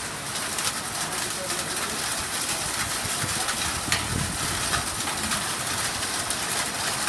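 Heavy rain and wind of a severe thunderstorm: a loud, steady hiss dotted with many sharp ticks, with a lower rumbling swell a few seconds in.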